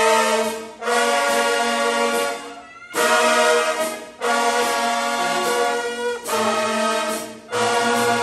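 High school marching band brass (trumpets, trombones, mellophones, saxophones and sousaphones) playing loud sustained chords, held for a second or two at a time with brief breaks between phrases.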